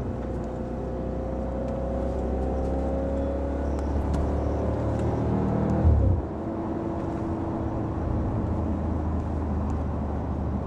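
Audi RS5's 4.2-litre V8 with sport exhaust pulling through a gear, its note rising slowly. About six seconds in, a gearshift gives a short boom and the revs drop, and the engine then runs steadily at lower revs.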